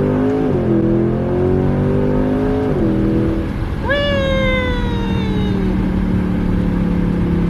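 Car engine under hard full-throttle acceleration, its pitch climbing and dropping sharply twice as it shifts up. About four seconds in a high whine sets in and falls away over a couple of seconds, then the engine settles to a steady drone.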